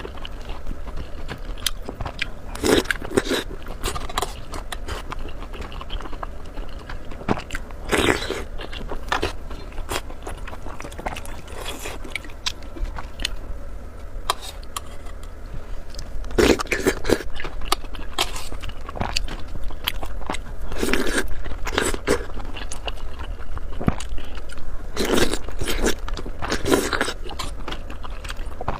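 Close-miked eating: irregular bites and chewing, with clusters of sharp crunchy clicks and wet mouth sounds, over a steady low hum.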